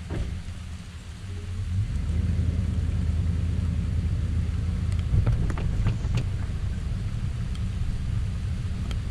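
Low rumble of a pickup truck towing a boat on its trailer, rising about two seconds in as the rig gets moving, with scattered light ticks over it.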